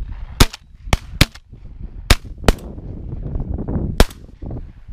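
Shotguns fired at ducks flying overhead: six sharp reports in about four seconds, the loudest about half a second in and about four seconds in.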